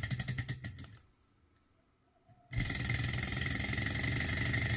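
Small alcohol-fired Stirling engine running with a fast, even mechanical clatter, with its generator driven off the flywheel. The sound fades away about a second in, drops out for about a second and a half, then comes back suddenly at a steady pace.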